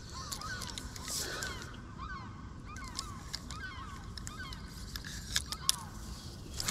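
A flock of birds calling, many short calls repeating and overlapping, over a steady low outdoor hiss. A few sharp clicks stand out, the loudest near the end.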